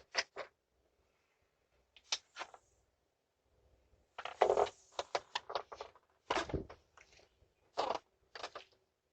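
Short clicks and rattles from someone trying to open a house door, coming in small clusters with a busier stretch in the middle, over a faint steady hum from the doorbell camera's microphone.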